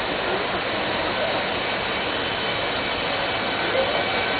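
EF210 electric locomotive pulling away, its inverter motor control giving a steady high whine of several thin tones over a steady rush of track and traffic noise.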